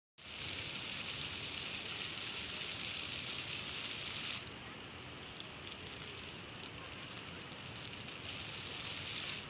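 Rows of small fountain jets spraying and splashing water, a steady hiss of falling water. The splashing drops noticeably about four and a half seconds in and swells again shortly before the end.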